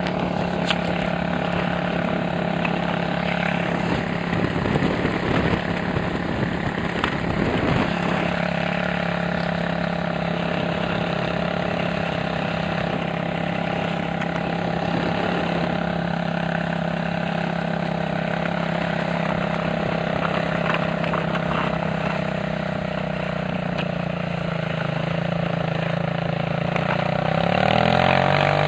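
Goes 450 quad bike engine running at a steady pace while towing a skier, over a continuous rushing noise.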